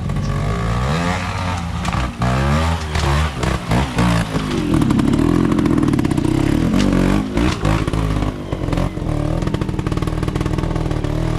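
Trials motorcycle engine blipped and revved in short bursts, its pitch rising and falling, with a longer held rev about halfway through and scattered sharp knocks.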